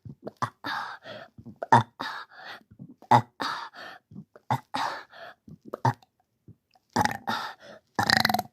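A person burping over and over: a quick run of short burps, with a longer, louder one near the end.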